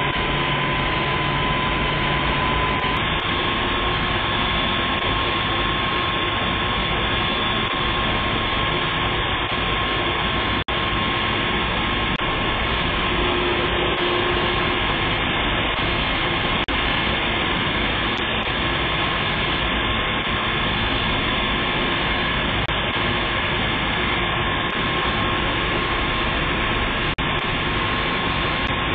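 Steady, loud noise of heavy machinery running, with a faint constant hum in it. It breaks off for an instant twice.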